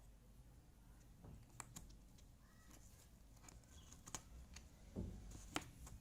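Jigsaw puzzle pieces being handled, giving faint scattered clicks and taps, with a soft thump and a sharper click about five seconds in.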